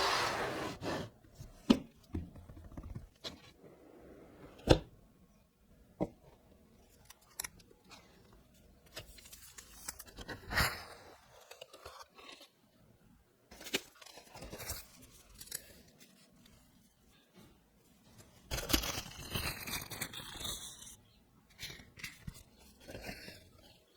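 Smartphone retail packaging being opened and handled: wrapping tearing and rustling in a few longer stretches, with scattered sharp clicks and taps of the box and phone being handled.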